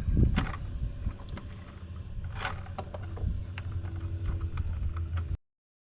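Scattered clicks and scrapes of a screwdriver working the terminal screws on a sprinkler controller's power wiring, over a low rumble. The sound cuts off suddenly near the end.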